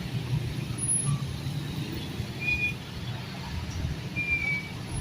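Road traffic at a railway level crossing: vehicle engines running in a steady low rumble, with two short high beeps.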